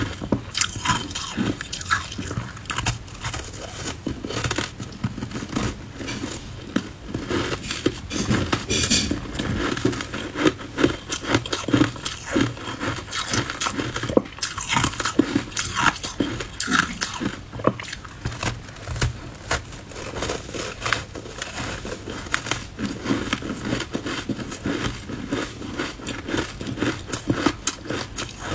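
Matcha-powder-coated ice bars being bitten and chewed close to the microphone: a continuous, irregular run of crunching with many sharp cracks of ice breaking between the teeth.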